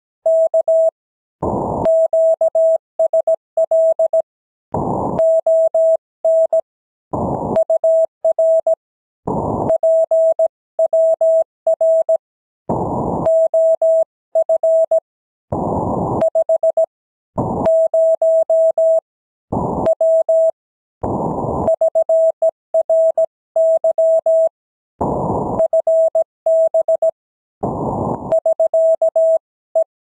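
Amateur radio Morse code (CW): a single steady tone of about 650 Hz keyed on and off in dots and dashes, sending the closing 73s that end the contact. Short bursts of shortwave band hiss fill the pauses between groups of characters.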